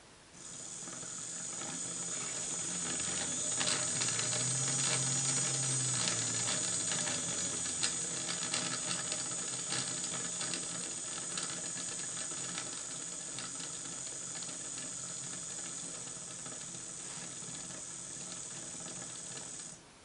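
Battery electric motor and gear train of a 3D-printed model Simplex locomotive running under remote control: a high-pitched whine with clicking gears that swells as it speeds up, then cuts off abruptly at an instant stop near the end.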